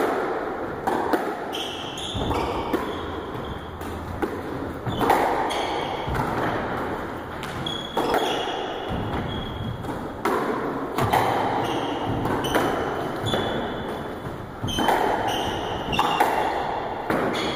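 Squash rally: the ball smacking off rackets and the court walls every second or so, each hit echoing in the enclosed court, with short high squeaks from players' shoes on the wooden floor between hits.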